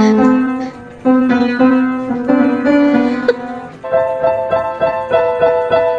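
Instrumental background music: sustained melodic notes, then a run of quick repeated notes about four a second from about four seconds in.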